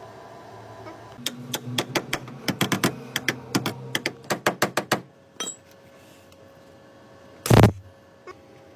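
A quick, irregular run of sharp clicks and taps lasting about four seconds over a faint steady hum, followed a couple of seconds later by one loud thump.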